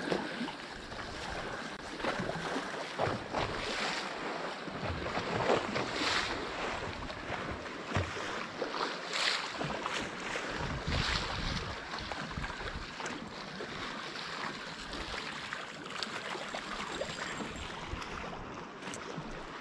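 Small sea waves lapping and splashing against the shore in irregular surges, with wind buffeting the microphone.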